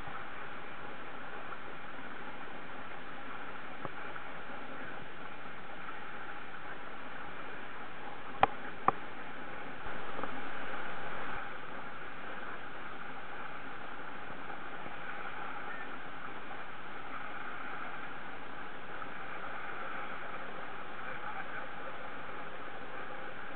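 Steady rush of wind and water aboard a sailing canoe under way at sea. Two sharp knocks come about eight and a half seconds in, then a louder patch lasts about a second and a half.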